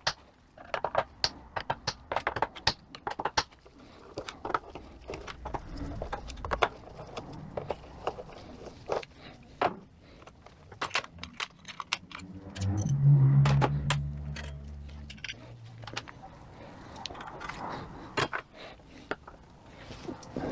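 Small metal parts of a 42RE automatic transmission valve body clicking and clinking as they are pulled out and handled. About twelve seconds in, a low hum joins for roughly three seconds and is the loudest sound.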